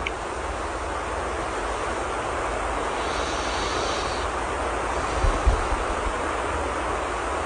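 Steady hiss of soft, continuous rain, with two soft low thumps about five seconds in.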